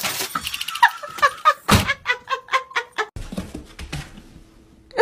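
A glass storm door swinging open and clattering, with one loud thump a little under two seconds in, among short yelp- or voice-like sounds. Quieter light scuffing follows over the last couple of seconds.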